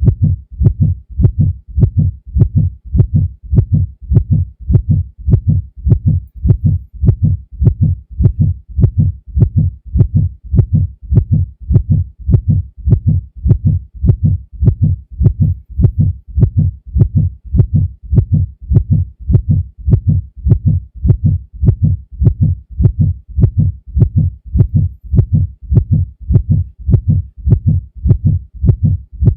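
Heartbeat sound effect: a steady, even rhythm of deep double thumps (lub-dub), at a resting pace of about one beat a second.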